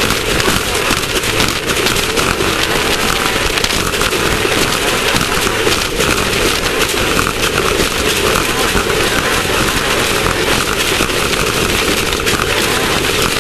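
Class 1600 off-road race car driving on a dirt course: a loud, steady din of engine and rattling chassis with dense crackling, like dirt and gravel striking the car.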